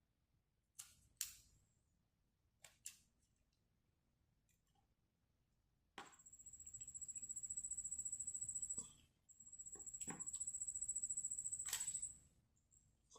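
A few light plastic clicks of the laptop being handled, then a small electric screwdriver's motor whining in two runs of about three seconds each, a high steady whine with a fast pulse, driving the two hard-drive screws back in.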